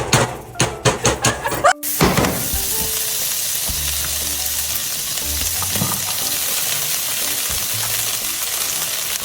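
Hot cooking oil sizzling, a loud steady frying hiss that starts abruptly about two seconds in, after a short run of rhythmic beats.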